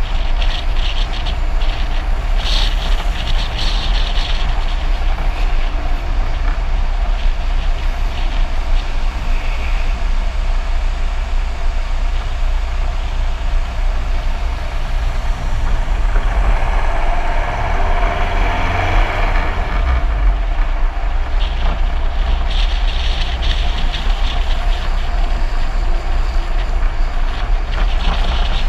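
Wind buffeting the microphone over steady road and tyre rumble from a follow car coasting downhill behind a skateboarder. The noise swells and brightens for a few seconds a little past the middle, around a hairpin bend.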